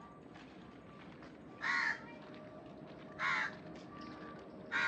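A crow cawing: three short, harsh caws, evenly spaced about a second and a half apart.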